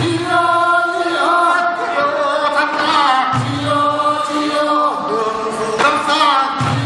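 A group of men singing a Korean traditional fishermen's work song together, unaccompanied and chant-like, with a short low thump about every three seconds.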